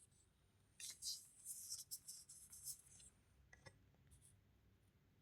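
Faint scratching of writing strokes on a surface for about two seconds, from about a second in, then a light click.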